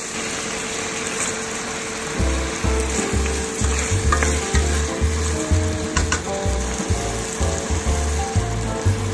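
Chicken frying and sizzling in oil in a stainless steel pot, stirred with a wooden spoon. Background music with a steady beat comes in about two seconds in.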